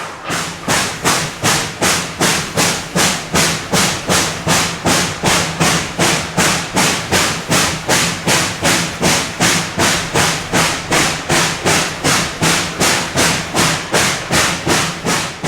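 Reading & Northern 425 steam locomotive's exhaust chuffing in a steady, even rhythm, about two and a half beats a second.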